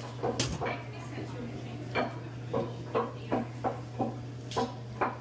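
Metal serving utensils clanking against steel food pans while a burrito-shop order is served up: about a dozen sharp clanks at uneven intervals. A steady low hum runs underneath.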